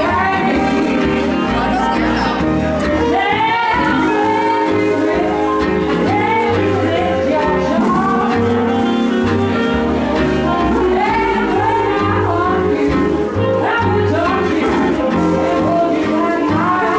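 A country band playing live, with a steady, rhythmic bass line under guitar chords and a lead line of bending notes.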